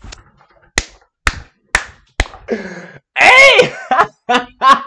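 Four sharp slaps, about half a second apart, followed by a voice calling out loudly.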